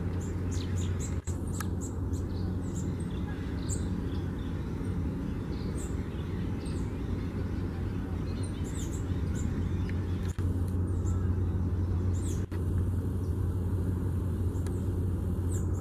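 Golden-crowned warbler (Basileuterus culicivorus) singing: short, high notes, many falling in pitch, scattered through and thinning out near the end. A steady low rumble runs underneath.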